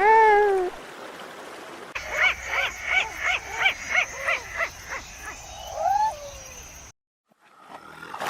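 Animal calls: one loud arching call at the start, then a run of about eight short pitched calls, about three a second, over a thin high steady tone, ending in a single falling call.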